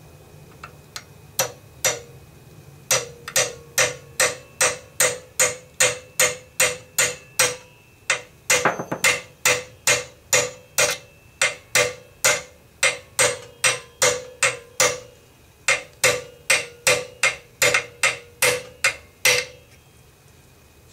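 Hammer striking a roll pin starter to drive the forward assist roll pin into an AR-15 upper receiver. A few light taps come first, then steady strikes at about two a second, each with a ringing metallic ping. The strikes stop shortly before the end, the pin driven home.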